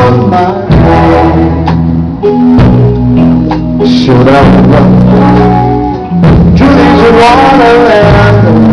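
Live band playing a song: a man sings into a microphone over electric guitars and keyboard, with sustained bass notes underneath. It is recorded very loud.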